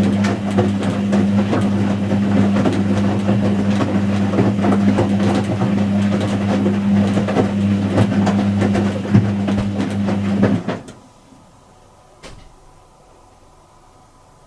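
Whirlpool H-axis top-loader washing machine's motor turning the drum in a wash cycle, a steady hum with busy clicking and sloshing. It stops suddenly about eleven seconds in for a pause, with one click in the pause, then starts again at the end: the drum's stop-and-reverse wash action.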